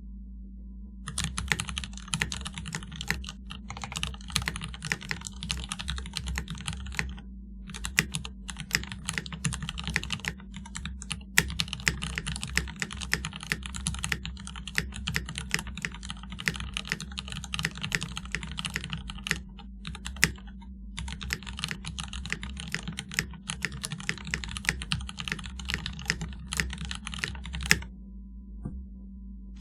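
Typing on a mechanical keyboard built with vintage Cherry MX Black linear switches, lubed and fitted with 67 g springs: fast, dense runs of keystrokes with a few short breaks, stopping near the end. A steady low hum runs underneath.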